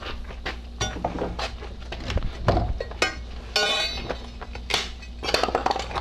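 A long steel pry bar levering a board off a wooden door frame: irregular knocks, clinks of the bar against wood and nails, and a short squeal a little past halfway as the board gives.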